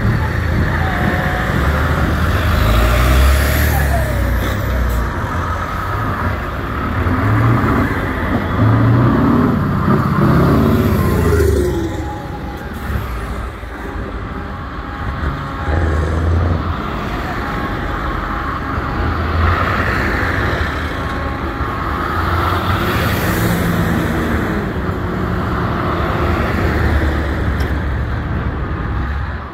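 Heavy trucks' engines running and driving along, the engine pitch rising and falling strongly around the middle.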